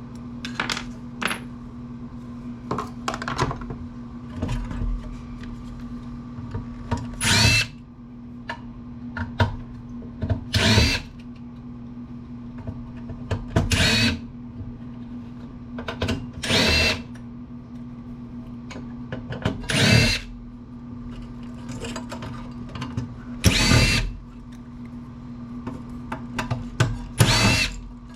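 Cordless power drill/driver backing screws out of an amplifier chassis: seven short runs of the motor, one about every three seconds, each whirring up in pitch, with small clicks of handling between them.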